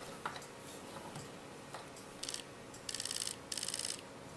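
PolarStar electro-pneumatic airsoft engine cycling on full auto as the trigger is pulled: three short bursts of rapid, evenly spaced ticking in the second half, the first one shortest, after some light handling noise.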